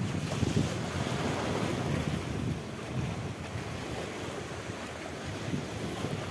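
Wind buffeting the microphone in gusts over the wash of shallow sea water; no distinct splash stands out.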